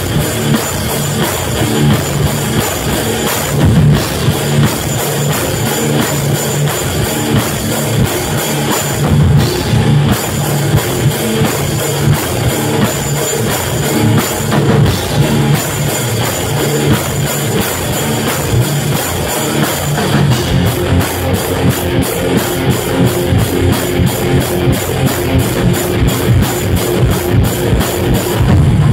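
Rock band playing live: electric guitars, bass guitar and a drum kit at full volume. About two-thirds of the way through, the drums switch to a fast, even beat.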